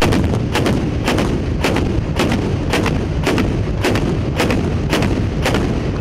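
Towed anti-aircraft autocannon firing a long burst at an even rate of about two rounds a second, eleven shots that stop shortly before the end, over a steady heavy rumble from the rest of the firing line.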